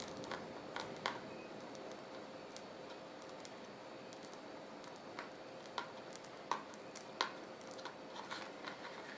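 Faint squishing of a cloth piping bag being squeezed as white paste is piped around the rim of a small tart, with a few scattered light clicks and a faint steady hum underneath.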